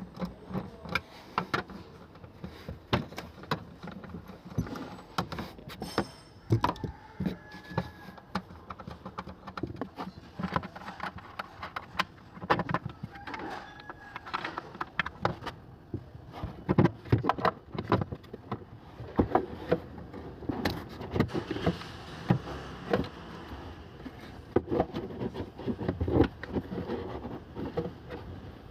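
Irregular clicks, knocks and metallic clinks of hand work with a small nut driver on a parking brake control module and its wiring harness connector.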